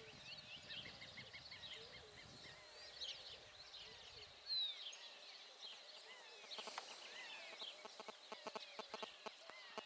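Several birds singing in a dawn chorus: many faint overlapping chirps, trills and whistled slurs, including a quick run of repeated notes early on. From about two-thirds in, a series of soft, irregular clicks or knocks joins them.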